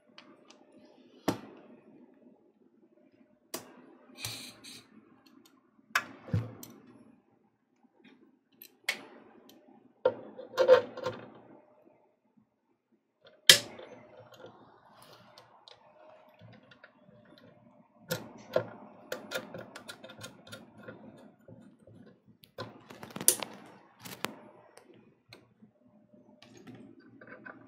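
Hands handling a metal gooseneck lamp arm and its plug at the socket of an LED spot light controller box: irregular sharp clicks, knocks and rattles with rustling in between.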